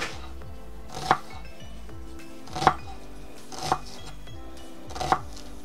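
Kitchen knife chopping an onion on an end-grain wooden cutting board: about five separate knife strokes roughly a second apart, over soft background music.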